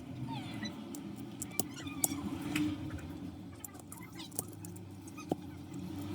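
Razor blade scraping and prying broken back glass and old glue off an iPhone 8's frame, with small squeaks and scattered clicks over a steady low hum.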